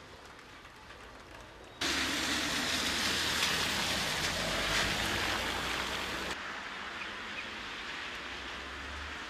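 Street traffic on wet asphalt: tyres hissing with a low engine rumble. A much louder stretch cuts in abruptly about two seconds in and cuts out just after the middle, leaving a quieter steady hiss.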